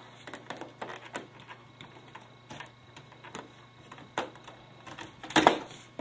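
About a dozen irregular clicks and taps of hard plastic and metal parts being handled while a vintage HP-85 computer is taken apart, with a louder knock near the end.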